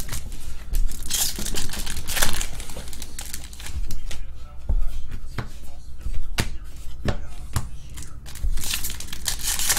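Foil wrappers of SP Authentic hockey card packs crinkling and tearing open by hand in several bursts, with small clicks and rustles of the packs and cards being handled.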